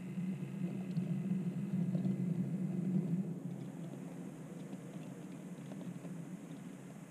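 OO gauge model train running along the track: a steady low rumble of motor and wheels that builds over the first three seconds and then eases off, with a few faint ticks.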